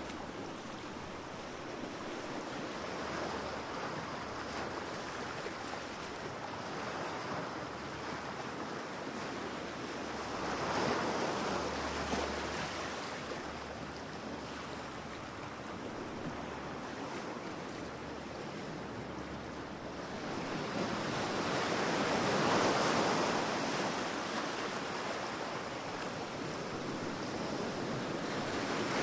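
Sea waves breaking on a beach, a continuous wash of surf that swells as waves break about a third of the way in, more strongly about three-quarters through, and again at the very end.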